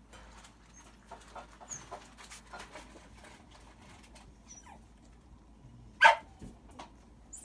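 Two-week-old puppies squeaking and whimpering faintly as they shift in a pile on a blanket, with one louder short yelp about six seconds in.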